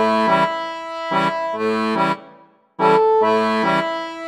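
Background music with rhythmic chords over a held note. It fades out about halfway through, drops to silence for about half a second, then starts again.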